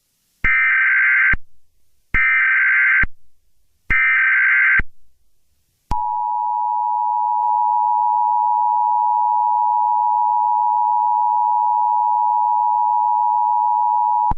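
Emergency Alert System SAME header: three bursts of buzzy digital data tones, each about a second long. Then, about six seconds in, the EAS attention signal begins: a steady two-tone beep that holds for about eight seconds and announces an emergency alert.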